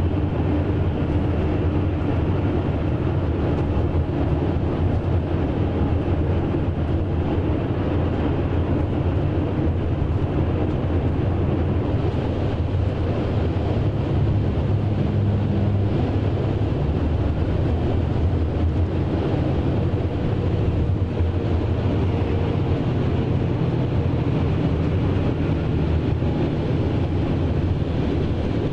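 Steady interior drone of a Scania K420 double-decker coach cruising, its diesel engine hum mixed with tyre and road noise, heard from inside the cabin.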